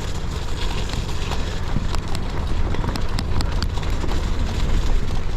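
Gravel bike tyres rolling and crunching over snow and ice, under a steady low rumble, with a run of sharp ticks around the middle.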